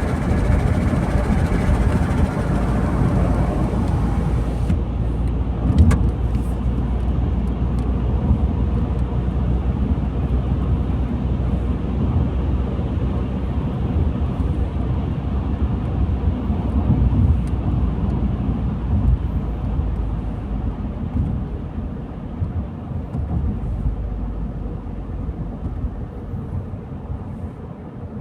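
Car driving on a road: a steady low rumble of engine and tyre noise, with a single short knock about six seconds in. The rumble eases off gradually near the end.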